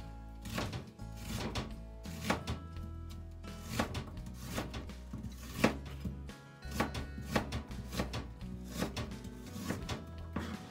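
Kitchen knife slicing an onion on a plastic cutting board, the blade knocking the board in quick strokes about twice a second. Background music with a steady low tone plays under it.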